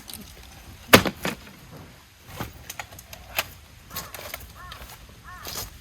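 A series of sharp knocks and clicks, the loudest about a second in, with a few short high calls repeated near the end.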